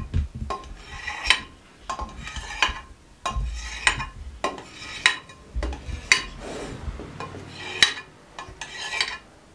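Kitchen knife cutting set jelly into pieces in a baking dish. The blade knocks and scrapes against the bottom of the dish at each stroke, giving a series of sharp, irregular clicks about every half second to second.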